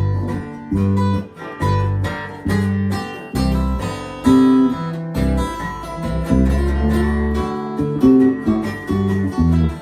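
Acoustic guitars strumming and picking an instrumental break between verses of a country-folk song, over low bass notes that change about every half second.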